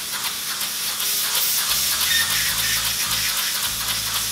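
3D-printed single-cylinder compressed-air engine running at 30 psi with a propeller fitted: a loud steady hiss of escaping air, broken by rapid fluttering exhaust pulses. A deeper rumble joins about two seconds in.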